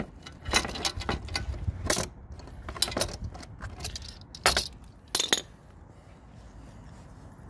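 Metal clinks and clatter of a steel extension bar and three-claw oil filter wrench being worked onto a motorcycle oil filter: a handful of sharp, irregular knocks, the last about five seconds in.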